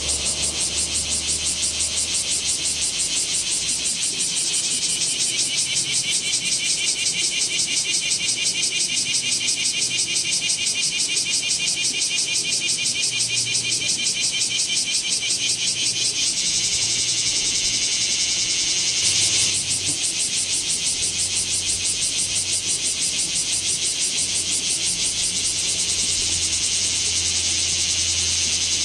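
Bear cicadas (kumazemi, Cryptotympana facialis) calling: a loud, high-pitched buzz of rapid, evenly repeated pulses, with a brief louder swell about two-thirds of the way through.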